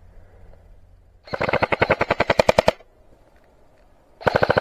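Airsoft gun firing on full auto, about a dozen shots a second, in two bursts: one about a second and a half long starting just over a second in, and another starting near the end.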